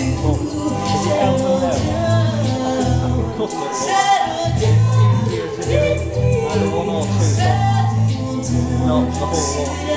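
Live band playing a song with a lead singer, over bass and drums with cymbals; the bass drops out briefly just before halfway.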